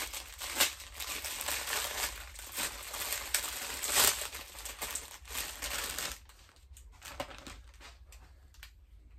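Plastic packaging crinkling and rustling as a garment is worked out of its bag by hand, busy for about six seconds and then quieter.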